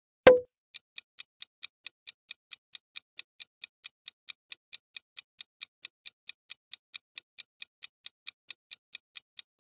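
Clock-ticking sound effect for a quiz countdown timer, evenly paced at about four ticks a second. It is preceded just after the start by a single short, sharp hit.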